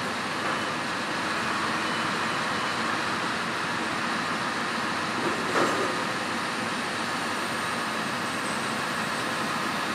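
Truck engine running steadily to power the truck's loader crane during a lift, with a short knock about five and a half seconds in.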